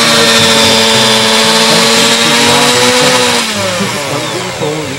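Electric hand mixer running, its beaters whirring through thick cookie dough in a metal bowl with a steady motor whine. Over the last second or two the pitch drops and the sound fades as the motor slows.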